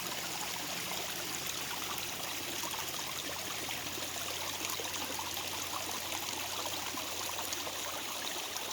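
Water from a backyard pond waterfall running steadily over rocks, fed by two pumps at once so it runs heavy.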